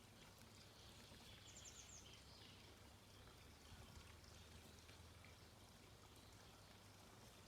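Near silence: faint background noise with a low steady hum, and a brief faint bird trill of a few rapid high notes about one and a half seconds in.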